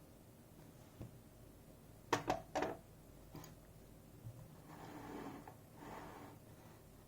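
Small metal parts of a safe deposit lock clicking as it is taken apart by hand: three sharp clicks in quick succession about two seconds in, then a softer drawn-out rubbing noise.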